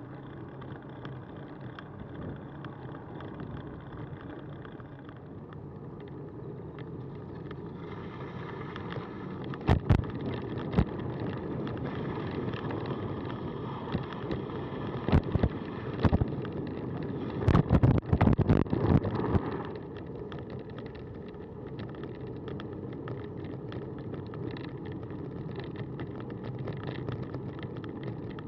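Cannondale bicycle riding along a path: steady rolling and wind noise, with bursts of loud knocking and rattling in the middle stretch.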